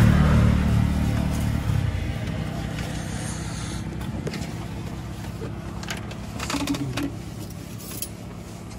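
A motor vehicle driving past on the road, loudest at the very start and fading away over about two seconds. After it fade, a few faint clicks and knocks.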